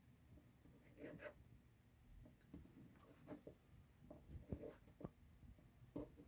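Faint, scattered light taps and scrapes as small pieces of modelling clay are handled and moved about on a tabletop.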